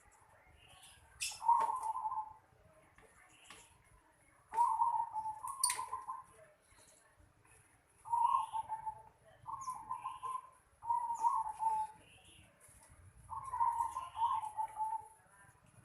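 Zebra dove (perkutut) cooing: about six phrases of rapid, warbling coos, each lasting about a second, with pauses between them.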